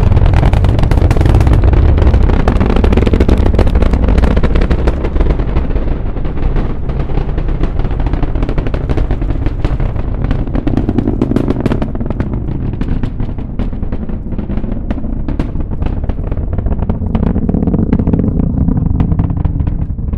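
Space Shuttle launch heard from over 4 miles away: a deep rocket-engine rumble laced with sharp crackles. The crackles are the many small shock waves ('mini-sonic booms') of the supersonic exhaust. Loudest and densest in the first few seconds, the sound then slowly weakens and the crackles thin out.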